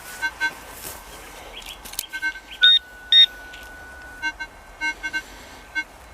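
Electronic audio tones from a Minelab CTX 3030 metal detector sweeping over a target: a steady held tone with short beeps at irregular intervals, and two louder, higher beeps about three seconds in.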